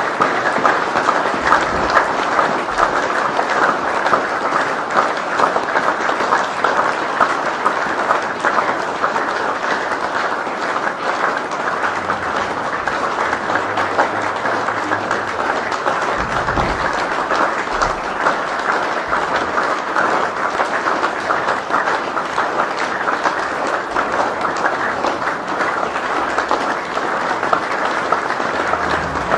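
Crowd applauding: dense, steady clapping of many hands, unbroken throughout.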